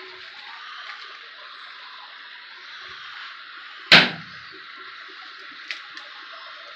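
Butter and a salmon fillet sizzling steadily in a frying pan where eggs are frying, with one sharp knock about four seconds in as an egg is handled over the pan.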